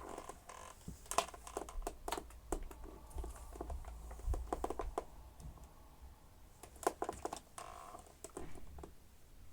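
Irregular light clicks and knocks of plastic being handled, from the Dyson upright vacuum cleaner being fiddled with, with no steady rhythm.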